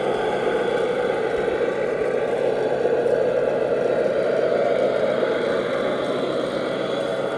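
Tamiya 3348 radio-controlled dump truck driving, its drive running with a steady, unbroken sound.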